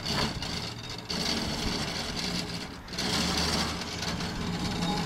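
Miniature railway locomotive being rolled along the track by hand, its wheels rumbling and rattling with some scraping.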